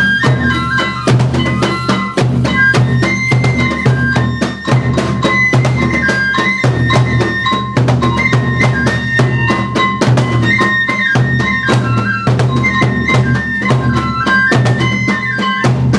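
Kagura ensemble music: a bamboo transverse flute plays a stepping melody of held notes over fast, continuous taiko drumming.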